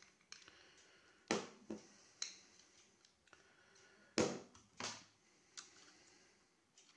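Several sharp clicks and knocks of metal and hard parts being handled: a screwdriver blade touched across the screw terminals of a large can-type electrolytic capacitor to discharge it, then the capacitor and screwdriver set down on the bench and a metal power-supply module picked up. The loudest knock comes a little past the middle.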